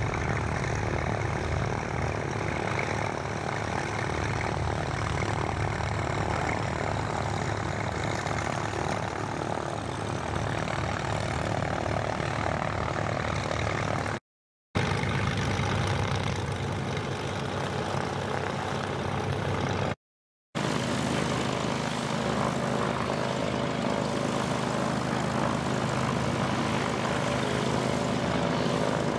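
Light single-engine propeller plane's engine droning as it comes in low and passes. After a cut, a pickup truck converted into an airplane tug runs steadily as it drives by.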